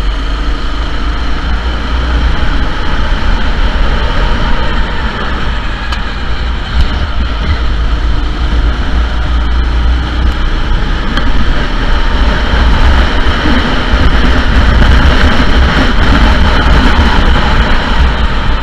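Sodi SR4 go-kart engine running continuously during a race, under a heavy low rumble; it gets somewhat louder in the second half.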